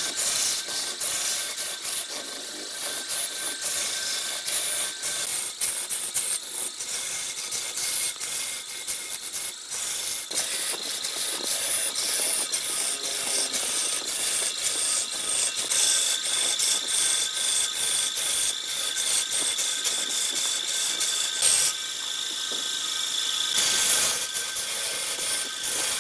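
A long-handled turning tool cutting into a large red-wood log spinning on a wood lathe: a steady scraping hiss peppered with rapid ticks of flying chips, with a thin high tone running along with it.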